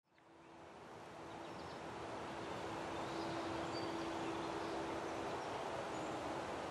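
Outdoor ambience fading in over the first two seconds: a steady rushing noise with a steady low hum that fades out near the end, and a few faint bird chirps.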